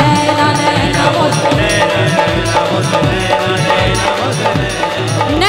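Live devotional bhajan music: the band plays between sung lines, over a steady drum beat.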